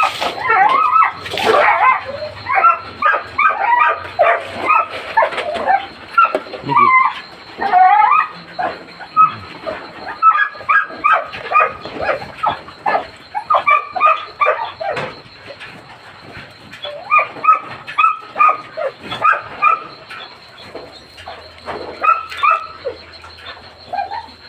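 Several huskies yipping, whining and barking at feeding time, their short calls overlapping in quick succession and easing off briefly twice in the second half.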